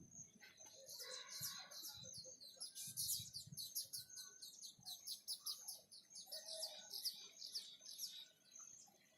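Bird chirping in a long, rapid run of short, high notes, several a second, stopping about eight seconds in.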